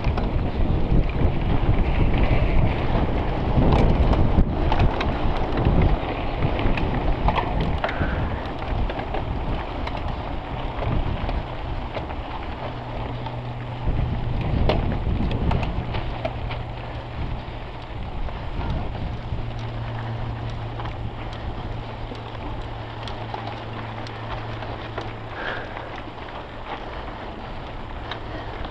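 Mountain bike ridden fast over grass and then a dirt trail, heard from a handlebar-mounted camera: wind buffeting the microphone and the tyres rolling over the ground make a dense rushing rumble, with scattered clicks and rattles from the bike over bumps. The rush is loudest for the first several seconds and then eases.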